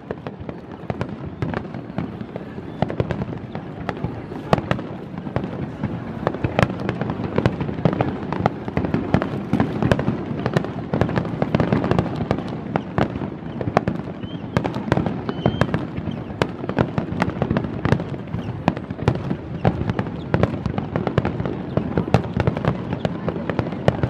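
Aerial fireworks shells bursting in a dense, rapid barrage, bang after bang with no pause, building in loudness over the first several seconds and then holding: the finale of the display.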